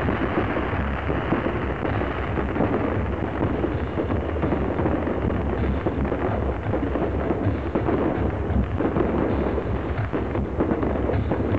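Fireworks display: a dense, unbroken barrage of shells bursting and crackling, many at once, over a low rumble.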